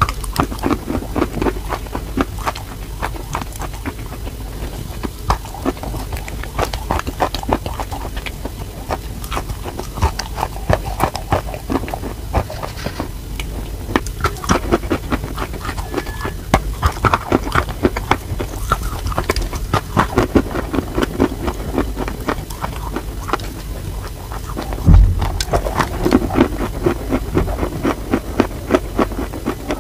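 Chalk being bitten and chewed: a continuous run of irregular crisp crunches and crumbling, with one heavy thump about 25 seconds in.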